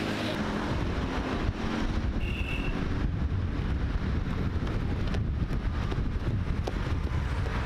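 Wind buffeting the microphone, a steady low rumble, over passing road traffic. A short high-pitched tone sounds a little after two seconds in.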